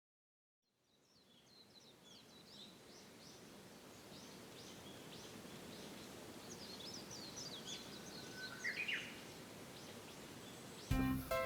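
Outdoor ambience fading in: a steady background hiss with small birds chirping over and over in short high calls, and a quick rising trill about nine seconds in. Music cuts in near the end.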